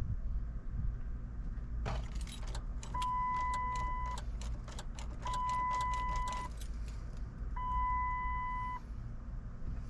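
Keys jangling and clicking at the ignition of a 2007 Dodge Dakota, then three long, evenly spaced beeps of the truck's warning chime, each a little over a second long.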